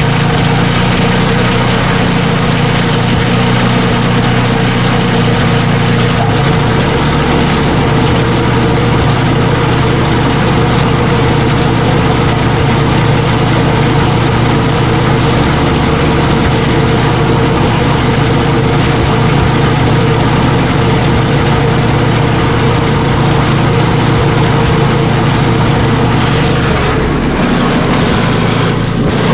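Ariens ST824 two-stage snow blower engine running steadily on a test run after a belt replacement, checking that the new belts engage. Its note shifts about six seconds in and again near the end.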